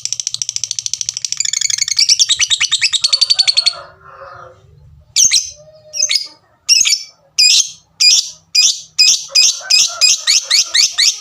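Female lovebird singing: a long, very fast chattering trill ('ngekek') for nearly four seconds, then after a short pause a series of sharp, separate 'tik' calls that come faster and faster toward the end.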